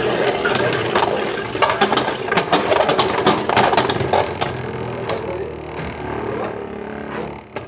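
Beyblade Burst tops spinning with a steady whir, clashing against each other and the stadium in rapid sharp clicks. The clicks thin out and the whir grows quieter over the last couple of seconds.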